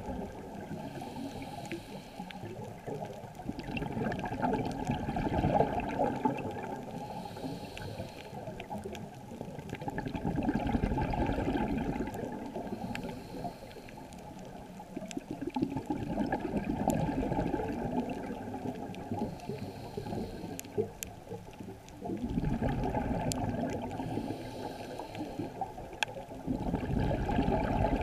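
Scuba breathing underwater: a muffled rush of regulator air and exhaled bubbles that swells and fades about every six seconds.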